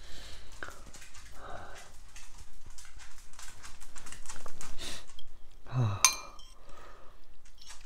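Noisy breathing and chewing while eating noodles, with a short low grunt and a metal fork clinking once against a glass bowl about six seconds in.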